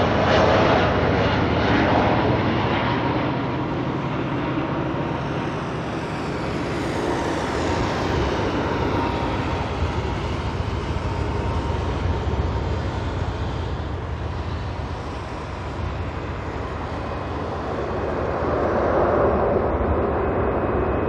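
Airbus A320 jet airliner landing: a continuous jet engine roar with a falling whine partway through, swelling again near the end.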